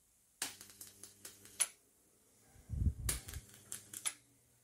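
High-voltage arc from a single-MOSFET flyback transformer driver crackling in irregular sharp snaps, with a steady low hum from the driver underneath. A few dull low thumps come about halfway through.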